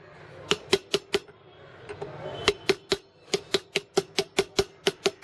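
Light, quick taps of a plastic-faced hammer on a steel socket used as a drift, driving a dust seal into a motorcycle front wheel hub over the new bearing. There are four taps, a short pause, then a steady run of about five taps a second, each with a brief metallic ring.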